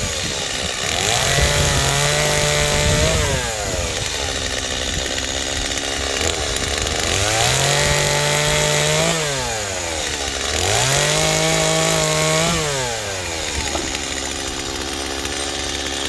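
Two-stroke chainsaw cutting firewood. Its engine revs up to full speed three times, holds for a second or two each time, then drops back. It shuts off at the very end.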